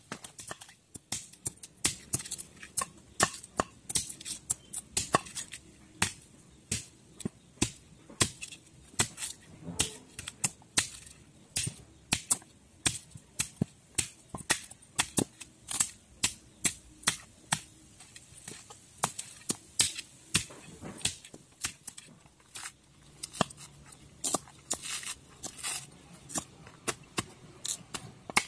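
Repeated sharp chopping knocks, irregular at about two or three a second: blade blows on a wooden cutting board as a pumpkin is cut up, and a machete hacking the husk off a coconut.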